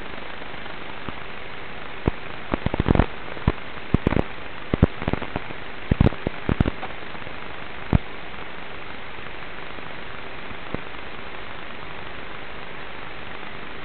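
Steady static hiss with a faint hum from an analog FPV video link's audio. A burst of sharp crackles and clicks comes between about two and eight seconds in, then single clicks.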